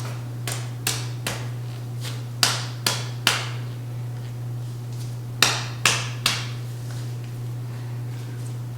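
Sharp clicks during chiropractic treatment, in three groups of three about half a second apart, over a steady low hum.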